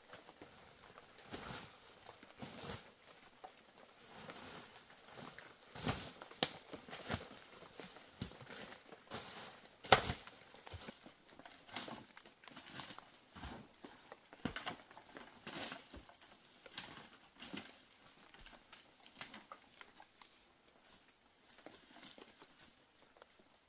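Irregular crinkling, rustling and light knocks, with one sharp knock or snap about ten seconds in; the sounds thin out near the end.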